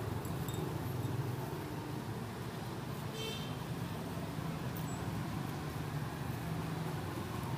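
Steady street traffic rumble, with a brief high-pitched beep about three seconds in.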